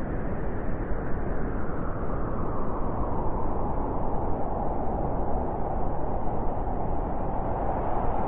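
Winter wind blowing steadily: an even rushing noise without gusts, its upper part growing slightly stronger about three seconds in.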